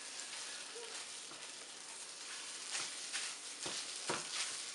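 Scrambled eggs sizzling in a hot Orgreenic ceramic non-stick frying pan, with a steady hiss. A silicone spatula scrapes and pushes the eggs around the pan, giving several short scrapes in the second half.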